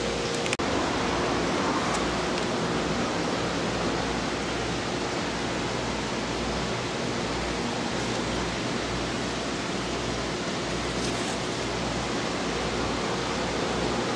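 Steady, even hiss of background room noise, with a brief click about half a second in.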